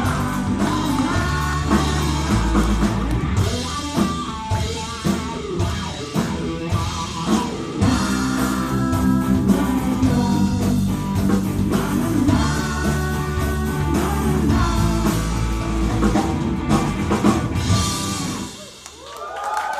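Live rock band: a woman singing over electric guitar, electric bass and drum kit. The song stops near the end and the audience starts to applaud.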